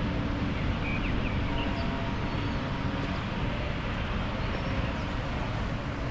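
Street ambience: a steady low rumble, most likely vehicle traffic, with a few faint, short bird chirps over it.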